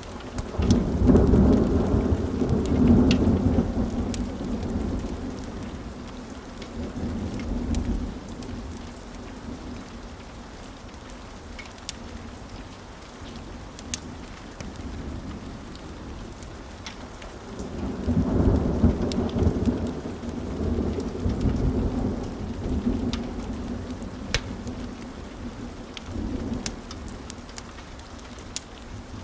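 Steady rain with two rolls of thunder, the first about a second in and the second about eighteen seconds in. Each rumbles for several seconds and then fades back into the rain.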